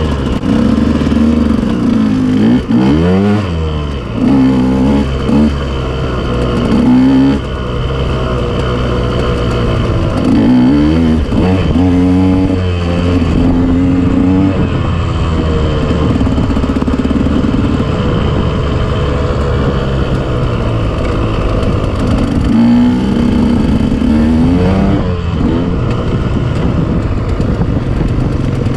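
KTM off-road motorcycle engine running under changing throttle, its pitch rising and falling again and again as it revs up and eases off.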